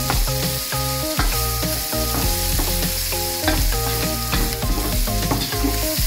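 Julienned carrot, scallion and chives sizzling in a wok as they are stir-fried with a spatula, with steady background music over it.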